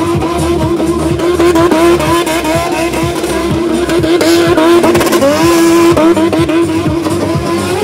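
Stunt-show vehicle engine held at high revs, its pitch mostly steady, with a brief dip and rise about five seconds in.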